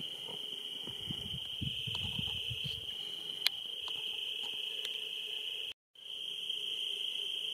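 Crickets trilling in one continuous, steady high note through the night air. Some low rumbling in the first few seconds and a single click a little later; the sound cuts out completely for a moment near the end, then the same trill carries on.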